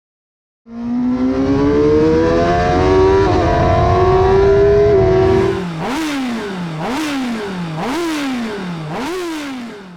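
Sport motorcycle engine heard on board at speed, pulling with a steadily rising pitch over loud wind noise. Then the engine note swings down and up about once a second, with a sharp crack at each peak.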